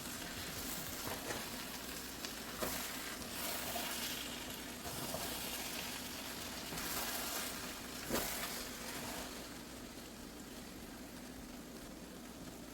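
Jollof rice in tomato sauce and chicken stock sizzling steadily in the pot, with a few short knocks of a spoon against the pot as it is stirred, the clearest about eight seconds in.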